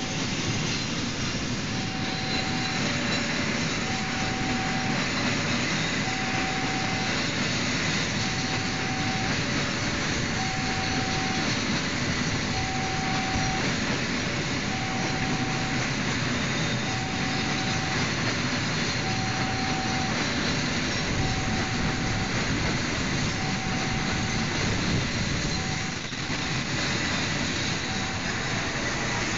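A freight train of flat wagons rolls slowly past over a level crossing, its steel wheels running on the rails, while the crossing's warning alarm sounds a two-tone signal, alternating a higher and a lower note about once a second, starting about two seconds in. The train is being pushed in reverse, and near the end its KAI CC 206 diesel locomotive comes past.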